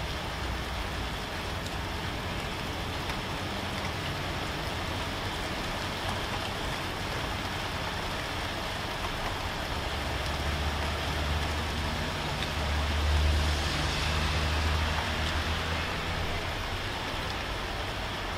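Steady rain falling, with a motor vehicle's engine running low underneath, growing louder about ten seconds in and fading again near the end.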